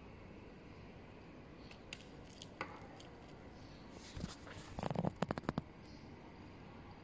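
Steel link watch bracelets clicking and clattering on a table as the watches are handled. A couple of light clicks come around two seconds in, then a quick run of about ten clicks between four and five and a half seconds in.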